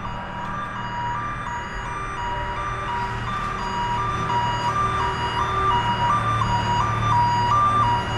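Garbage truck's backup alarm beeping in a steady high-low two-tone pattern over the truck's low engine running, growing louder as the truck reverses closer.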